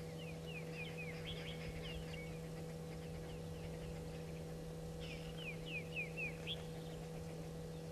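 Bird calling: a series of short, down-slurred whistled notes, fading after the first couple of seconds and returning in a louder bout about five seconds in, over a steady low hum.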